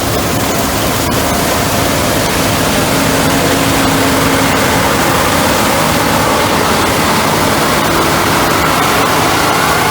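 Heavy farm machinery running close by during the soybean harvest: a loud, steady rush of machine noise with a faint engine tone that rises slowly near the end.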